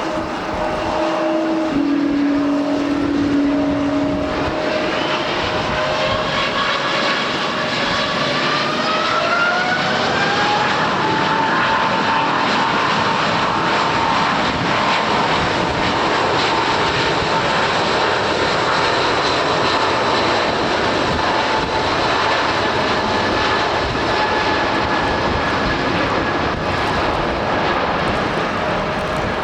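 Boeing 777-300's twin jet engines spooling up to takeoff power, a whine rising in pitch for several seconds about a third of the way in, then holding a steady high whine over a loud rushing roar.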